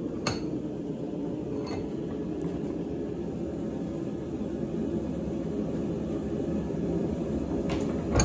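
Steady low drone of the running forge, with a couple of faint clicks in the first two seconds.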